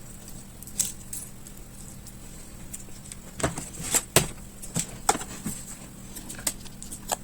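Scattered small clicks and taps of hands unplugging a laptop's battery cable connector from the motherboard, loudest in a cluster about four seconds in, over a steady background hum.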